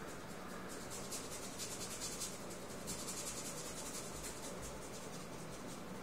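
Paintbrush bristles scrubbing paint across a painting surface in repeated strokes: a dry, scratchy rasp, loudest through the first four seconds or so and fading near the end.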